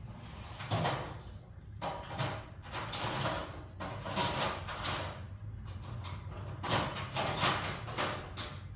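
Irregular scraping, rustling and clattering of tools and parts being handled in a workshop, over a faint low steady hum.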